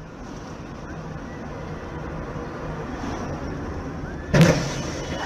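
Steady road and engine noise heard from inside a moving car, then a single loud crash about four seconds in as a car collides with a wheel loader.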